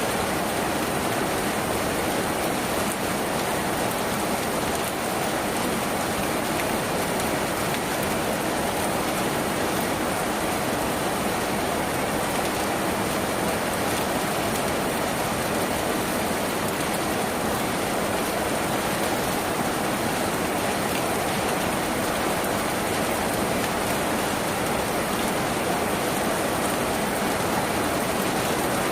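Steady rain falling on a tin roof, an even hiss of drops with no let-up or change.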